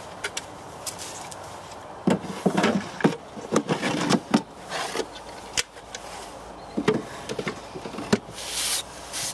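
Small wooden drawers of a pine storage unit being slid open and pushed shut, wood scraping along the runners with sharp knocks as drawers hit home, many times over.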